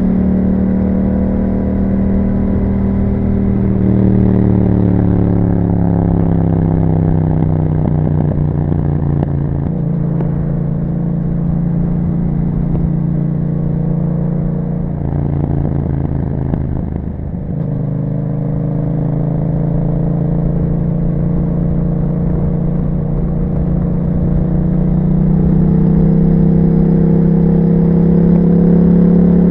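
A Yamaha MT-07's 689 cc parallel-twin engine running through an Akrapovic exhaust while riding. The engine note steps and shifts several times with gear changes and throttle, dips briefly a little past the middle, and rises again near the end.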